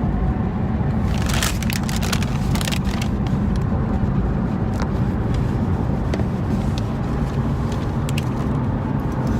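A moving vehicle's steady low rumble, with scattered clicks and crackles from about a second in.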